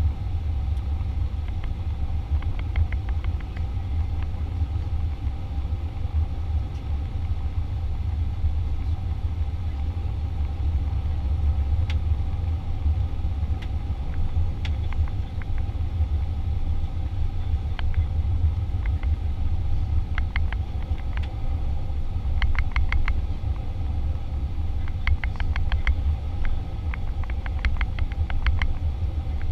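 Boeing 737 jet engine and airflow noise heard inside the passenger cabin during the descent on approach: a steady low rumble with a steady hum above it. A light rattle of rapid ticks comes and goes, more often near the end.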